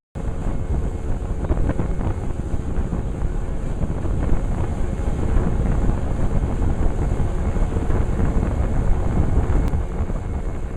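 Boat running at speed, heard mostly as wind rumbling on the microphone, over a steady engine drone and water rushing past the hull.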